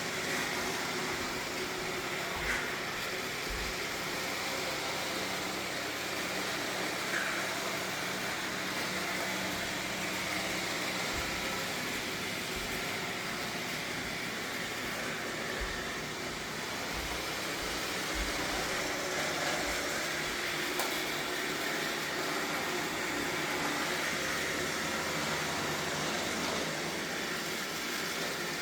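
Roborock S7 robot vacuum running steadily as it cleans a hard floor, with its suction motor and brushes making an even whir.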